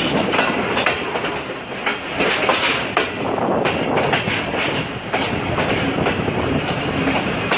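Passenger train coaches rolling along the track, heard from an open window of the moving train: a steady rumble with the wheels clicking irregularly over the rail joints.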